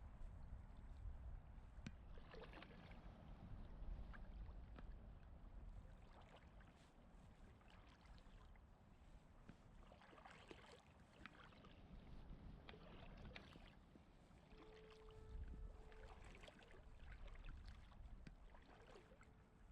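Faint outdoor river ambience: a low rumble with light, scattered water sounds.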